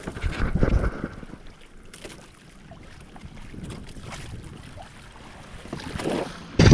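Wind buffeting the microphone over water rushing and splashing along the hull of a sailing kayak under way. A louder gust of rumbling wind comes about half a second in, and again at the very end.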